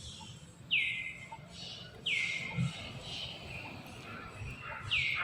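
Three short, high-pitched animal calls, each falling quickly in pitch: about a second in, about two seconds in, and near the end.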